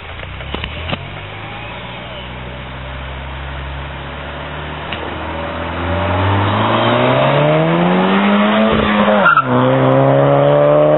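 2009 VW Scirocco's 1.4 TSI four-cylinder engine and exhaust accelerating, first low and distant, then its note climbing steadily in pitch and growing louder. About nine seconds in it breaks off briefly and drops in pitch, then climbs again.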